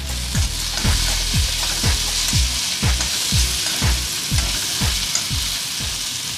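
Sliced okra sizzling in hot ghee in a wok while being stirred with a metal spatula, a steady frying hiss. Under it runs a music beat, with about two low thumps a second.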